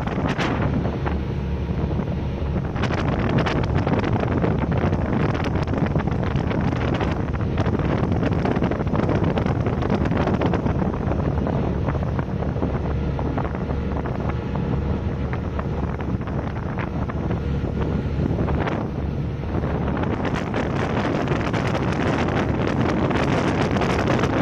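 Wind buffeting the microphone over the steady drone of a motorized outrigger boat's engine under way, with water rushing past the hull.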